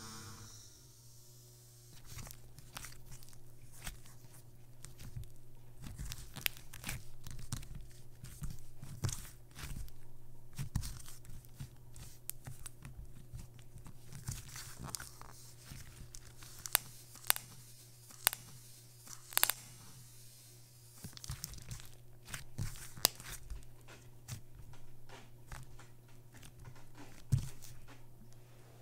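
Thick tan slime being stretched and kneaded by hand, giving irregular crackling, tearing and sticky popping, with a few sharp, louder pops in the middle. A steady low hum runs underneath.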